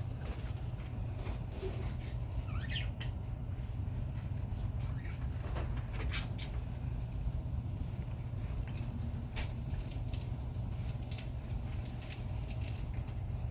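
Budgies moving about, making scattered small clicks and scratches, with one brief faint chirp about two and a half seconds in, over a steady low hum.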